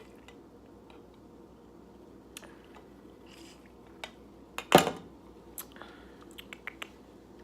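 Scattered small clicks and crunches of chewing close to the microphone, with one short, loud knock just under five seconds in and a quick run of clicks after it.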